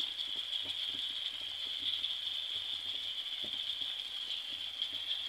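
Chicken pieces cooking in their own yogurt-and-spice marinade in a pan: a steady sizzle of bubbling juices with faint scattered pops.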